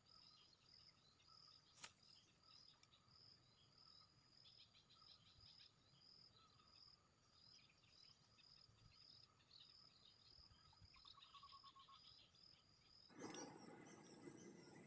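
Faint outdoor ambience of insects chirping in a steady, even pulse, with scattered bird chirps. There is one sharp click about two seconds in, and a louder, noisy sound starts near the end.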